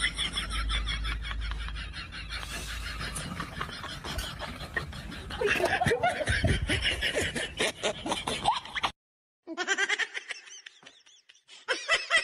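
Laughter in quick repeated bursts. It cuts out for about half a second near nine seconds in, then starts again.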